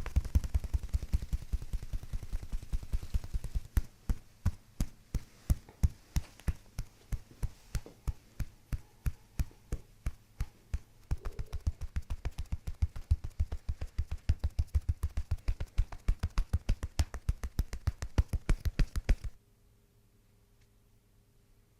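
Rapid, evenly spaced knocking, several strikes a second, that stops abruptly near the end.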